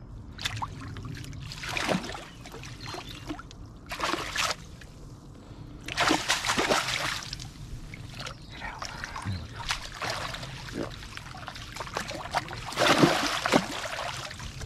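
A hooked fish thrashing and splashing at the water's surface as it is drawn into a landing net, in several separate bursts. The loudest splash comes near the end, as the net is lifted and water sloshes and streams through the mesh.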